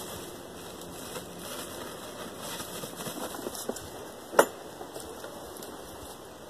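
Dirt being handled in a plastic bucket: soft scattered crackles and scrapes of soil, with one sharp knock a little past four seconds in, the loudest sound.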